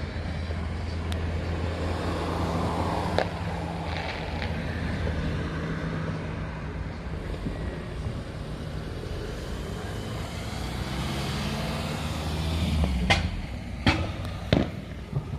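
Steady low hum of a vehicle engine running nearby, with sharp firework bangs cutting through: one about three seconds in and three in quick succession near the end.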